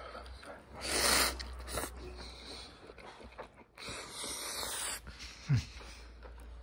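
A person eating close to the microphone: two long breathy sounds, the second about a second long, then a short dull thump about five and a half seconds in, over a low steady hum.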